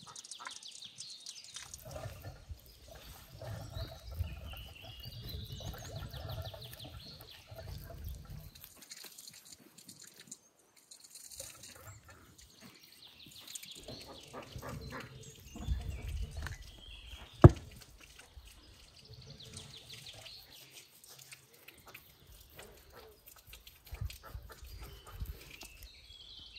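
A knife cutting into a large raw leg of meat on a wooden cutting board, with wet slicing and handling sounds. About two-thirds of the way through there is one sharp knock on the board, the loudest sound.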